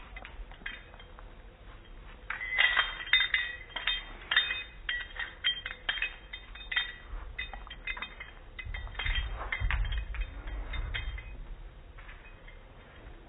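Metal tags on a dog's collar clinking and jingling in a quick, irregular run as the dog moves its head. Partway through there is a low rumble of handling noise.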